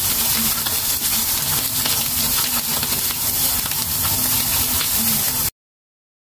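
Seasoned fish fillets frying in oil in a pan: a steady sizzle with small crackles, which cuts off abruptly near the end.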